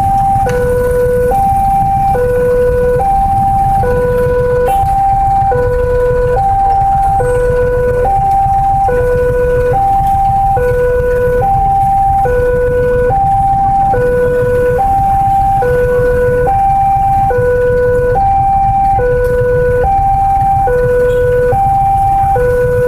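Railway level-crossing warning alarm sounding continuously: an electronic two-tone signal alternating high and low, a high-low pair about every 1.6 seconds, warning that a train is coming and the barrier is down. A low rumble of idling motorcycle engines runs underneath.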